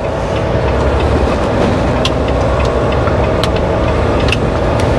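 Semi-truck diesel engine running, heard from inside the cab, louder as the rig pulls away through a turn. Small clicks and rattles come through now and then.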